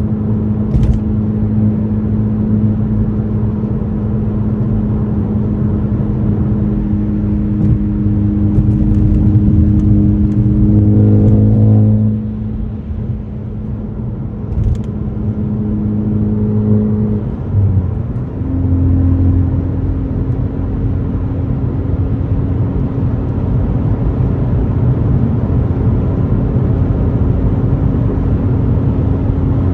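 Ford Focus ST's turbocharged 2.0-litre four-cylinder engine, breathing through an AWE axle-back exhaust, running steadily at cruising revs. The engine note falls away about twelve seconds in, dips briefly around eighteen seconds, then holds steady again at a slightly higher pitch.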